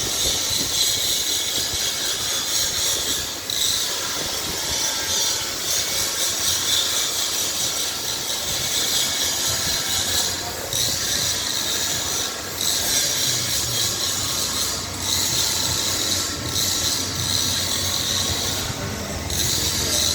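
Steady, high-pitched hissing noise from metalworking in a shop, broken by short pauses every few seconds.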